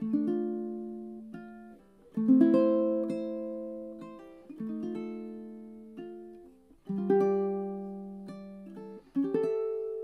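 Solo ukulele fingerpicking a slow ballad. Chords are struck about every two and a half seconds and left to ring out, with lighter melody notes picked in between.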